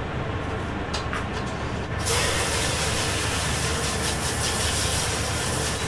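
Water spraying from a hose's brush-head nozzle into an empty stainless-steel deep-fryer vat, starting suddenly about two seconds in and then running as a steady hiss over a low steady hum.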